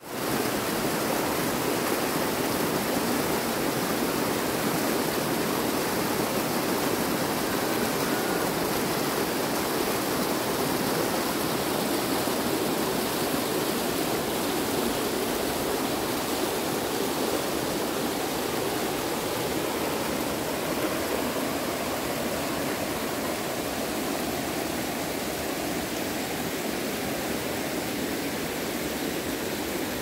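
Waterfall rushing steadily: a dense, even noise of falling water.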